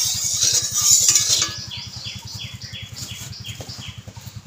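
A flat metal spatula scraping around a steel kadai, spreading hot oil, for about the first second and a half. Then a quick series of short falling chirps, about three a second, from a bird, over a steady low hum.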